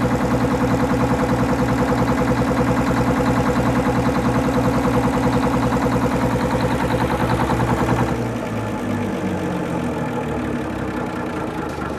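Detroit Diesel 6-71 two-stroke inline-six diesel of a 1944 Navy generator set running steadily with a rapid, even beat. About eight seconds in it is shut off and runs down, its beat slowing.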